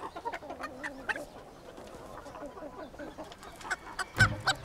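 Meusienne chickens, large and bantam, clucking softly in short calls, with a couple of loud thumps near the end.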